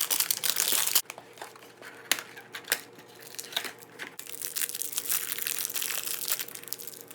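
Plastic wrapper of a trading-card hanger pack being torn open and crinkled by hand. There is a loud burst of crinkling at first, then softer crackles and a few sharp clicks, then steady crinkling again from about four seconds in.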